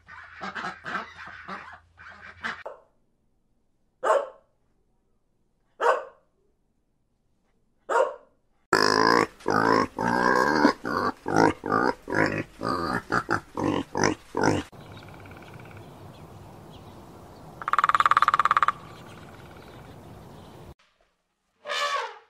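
A run of animal calls cut together: mallard ducks quacking for the first couple of seconds, a few short separate calls, then a sow and piglets grunting for several seconds in the middle, and an elephant trumpeting briefly near the end.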